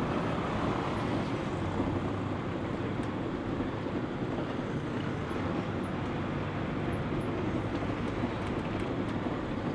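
Private bus driving along a town road, heard from a window seat: a steady engine drone mixed with road and wind noise coming in through the open window.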